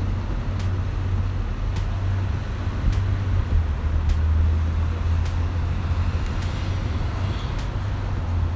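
City street traffic: a steady low rumble of cars driving past, with faint ticks about once a second.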